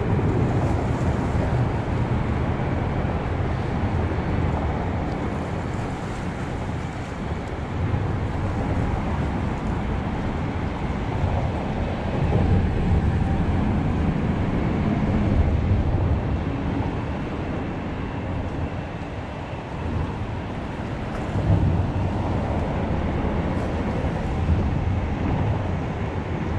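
Wind rushing on the microphone over bay water lapping, with a low rumble that swells and eases every few seconds.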